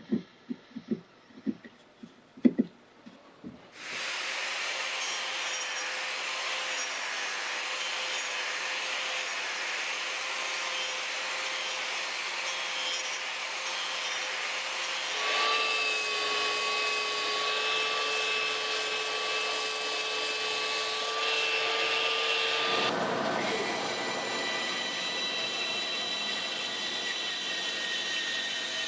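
A few sharp knocks, then a power tool starts up and runs steadily on wood, with a motor whine whose pitch shifts about fifteen seconds in and again about eight seconds later.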